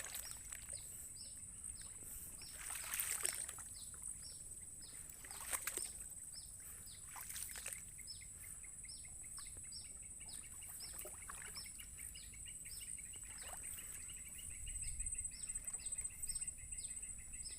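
Birds chirping outdoors: short high chirps repeated about twice a second over a steady high-pitched hum, joined about halfway through by a fast steady trill. A few brief rustling noises come in the first half.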